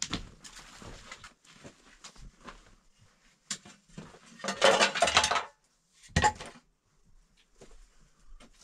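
Footsteps on loose rocks, with stones and the hiker's pack gear clinking and knocking. About halfway through comes a louder clatter lasting about a second, then a shorter one a second later.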